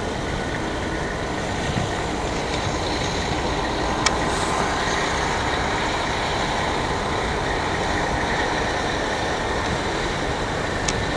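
Diesel locomotive engine running steadily as the locomotive rolls slowly past, pulling freight cars, with a single sharp click about four seconds in.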